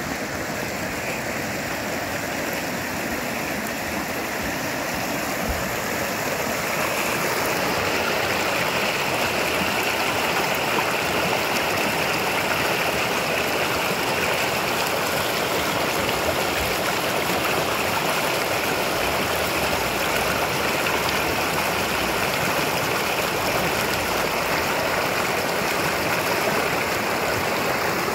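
Fast mountain stream rushing and splashing over rocks, a steady, full water noise that grows a little louder about seven seconds in.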